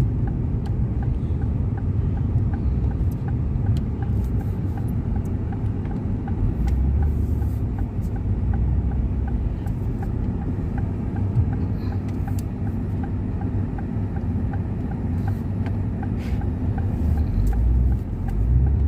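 Car driving slowly on a snowy road, heard from inside the cabin: a steady low rumble of engine and tyres, with a faint even ticking about three or four times a second.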